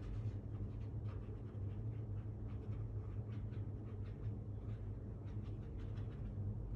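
Small paintbrush brushing over watercolor paper in a run of short, soft, irregular strokes, with a steady low hum underneath.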